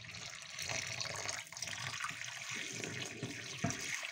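Hot water poured from a kettle in a thin stream straight into a stainless steel kitchen sink's drain, a steady splashing trickle, with a short knock near the end. The hot water is flushing the drain after a baking soda and citric acid treatment, to clear a clog.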